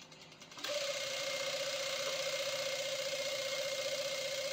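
Industrial sewing machine running at a steady speed to drive its bobbin winder, winding thread onto a bobbin: a steady whir with a constant tone, starting about half a second in.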